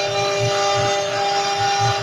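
A CNC router spindle runs at high speed, making a steady high whine, while its bit cuts an engraving into a wood panel with a dry cutting hiss. Uneven low pulses run underneath.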